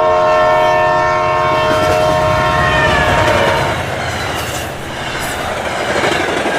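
A train going by with its horn sounding: a held multi-note horn chord that slides down in pitch about three seconds in as the train passes, then fades, over the rumble and clatter of wheels on rails.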